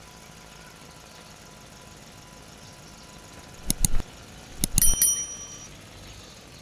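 Hard objects knocking together: two quick clicks near the middle, then a cluster of sharper clinks about a second later, the last ones ringing briefly with a metallic tone, over a faint steady hum.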